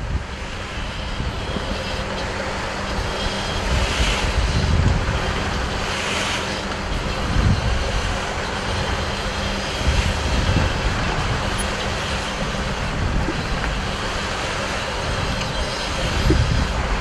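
Harpoon boat's engine running steadily under way, a low steady hum under a rush of noise, with gusts of wind rumbling on the microphone every few seconds.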